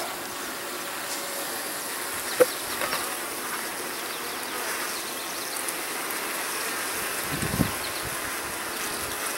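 Steady buzzing of many honeybees crawling and flying around the opened nuc and its lid, with a sharp click about two and a half seconds in and a brief louder low hum around seven and a half seconds in.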